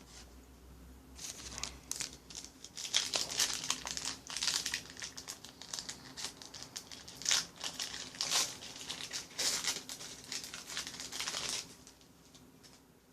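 Trading-card pack wrapper being torn open and crinkled by hand: irregular crackling and rustling that starts about a second in and stops shortly before the end.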